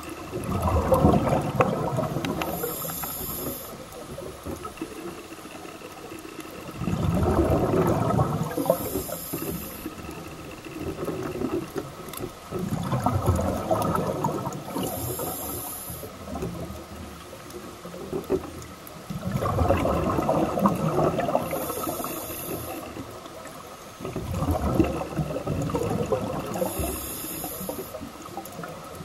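Scuba breathing through a regulator underwater: exhaled bubbles gurgle in bursts about every six seconds, five times, each a few seconds long, with a short high hiss in each breath cycle.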